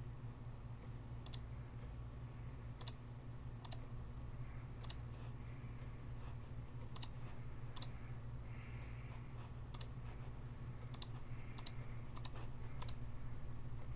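Sharp, separate clicks coming every second or so at irregular spacing, over a steady low hum.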